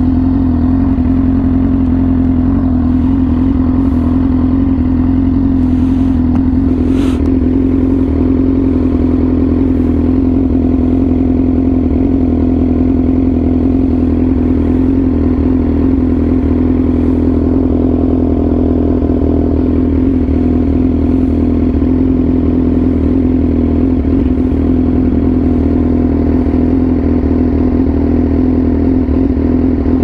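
Yamaha R6 inline-four sport bike with an SC Project aftermarket exhaust, running under way at a steady, unchanging engine pitch.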